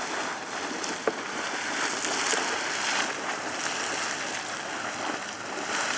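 Super Frying Pan Geyser erupting: a steady rushing hiss of steam and water venting from the ground, with one short click about a second in.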